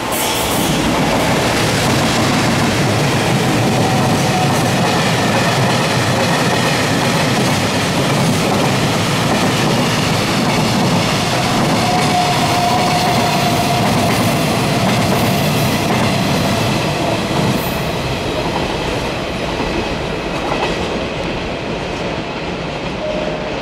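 Freight train hauled by an EF210 electric locomotive passing through a station: a steady rumble and clatter of wagon wheels over the rail joints, with a thin wheel squeal around the middle, easing off as the last wagons go by.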